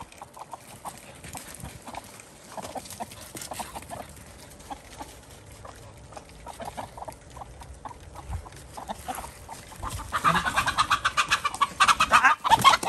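Hens clucking in a steady string of short calls, breaking into louder, rapid cackling about ten seconds in.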